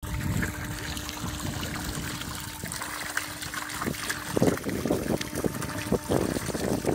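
Water from a hose jetting and splashing into a plastic stock tub as calves push their muzzles into the stream; the splashing grows louder and more broken about four seconds in.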